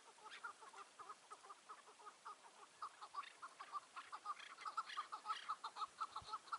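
Chukar partridges calling: a fast run of short, repeated clucking notes, about four or five a second, growing louder past the middle.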